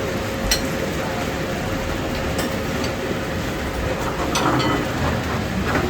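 Steady hiss of rain falling around an open street food stall, with a faint steady hum and a few light clicks.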